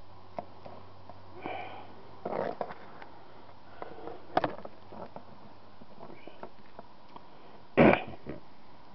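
Scattered light clicks and knocks from the smashed LG phone and its pieces being handled, with a few short noisy bursts, the loudest about eight seconds in.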